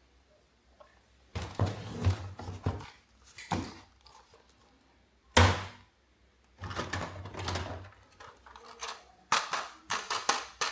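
Hard plastic toys being handled, knocking and clattering in irregular bursts, with one sharp loud knock about halfway through and a quick run of clicks near the end.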